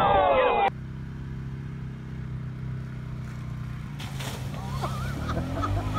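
Voices cut off abruptly under a second in. After that, an ATV's engine runs steadily at low revs, a low even drone. From about two-thirds of the way through, a rushing noise and voices join it.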